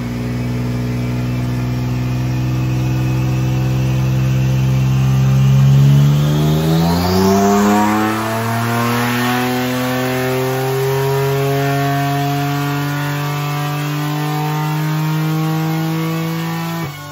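Twin-turbo Honda J-series V6 running under load on a chassis dyno: it holds a steady engine note, then about five seconds in the revs climb and keep rising through a pull. A high whine sweeps upward as the revs start to climb.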